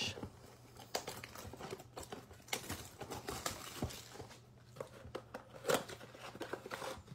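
Packaging of a baseball-card blaster box crinkling and tearing as it is unwrapped and opened by hand, in irregular rustles with scattered clicks.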